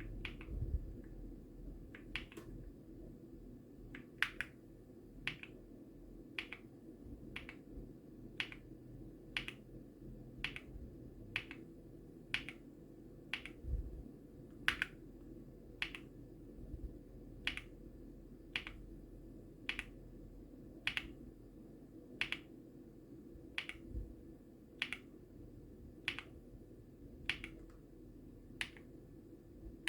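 Single mechanical keyboard key presses, one sharp click about every second, over a low steady hum.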